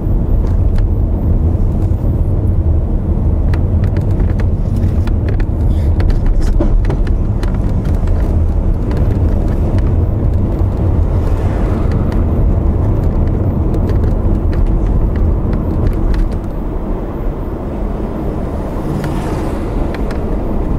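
Car driving, heard from inside the cabin: a steady low rumble of engine and road noise with scattered light clicks, getting a little quieter about three-quarters of the way through.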